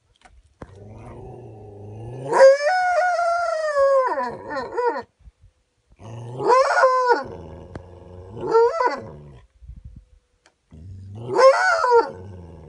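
A wounded coyote with a bloody foreleg and mouth, making distress calls: a low growl that breaks into a loud, high, wavering howl-like yelp. There are four such calls, and the first, about two seconds in, is the longest; each one drops in pitch as it ends.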